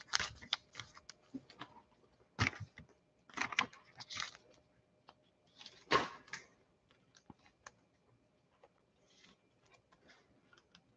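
Scattered light clicks and short rustles of trading cards and clear plastic card holders being handled on a table. The louder rustles come about two and a half, three and a half and six seconds in, with fainter ticks after.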